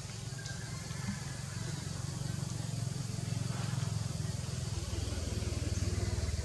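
An engine running steadily, a low pulsing rumble that shifts slightly about five seconds in.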